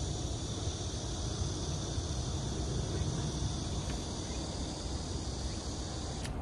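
A steady chorus of insects, a continuous high trill, over a low rumble, until it cuts off sharply with a click near the end.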